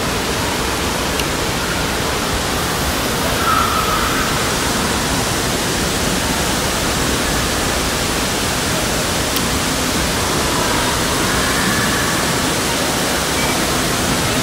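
Steady rush of churning water in an indoor wave pool, with faint voices twice in the background.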